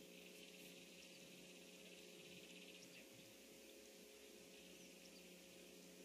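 Near silence: a faint steady hiss with a low hum, the outdoor livestream microphone's background.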